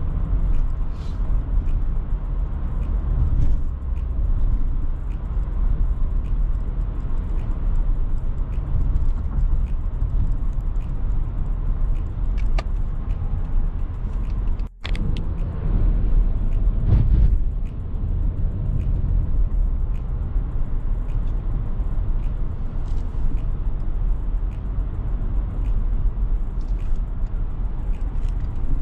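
Steady low rumble of a car driving, heard from inside the cabin: engine and tyre noise on the road. The sound drops out for an instant a little past halfway through.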